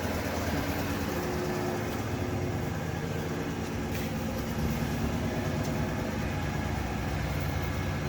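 Steady low machinery hum in a machine shop, even in level with no starts, stops or knocks.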